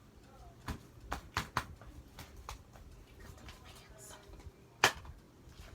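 Slime and its plastic container being handled: a scattering of short, sharp clicks and pops, with one much louder click near the end.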